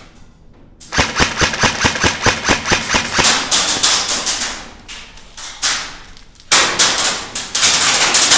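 Airsoft electric rifle firing rapid volleys of sharp shots, about six a second, starting about a second in, easing off midway, then firing again near the end.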